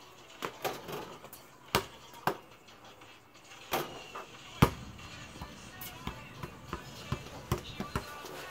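A basketball bouncing on pavement and being shot: a string of irregular sharp thuds, the loudest about halfway through.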